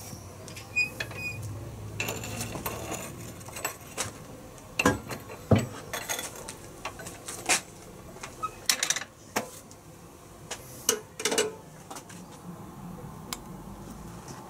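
Irregular metallic clinks, clacks and knocks as an electric kiln's metal door is opened and shut and a 10 mm rebar rod is handled with metal tongs in its chamber. The loudest knocks come about five seconds in.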